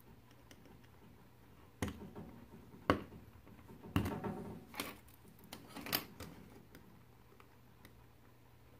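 A small screwdriver prying and scraping at the chassis and plastic base of a 1:64 die-cast toy car, giving a handful of sharp clicks and short scrapes. The loudest come about three and four seconds in.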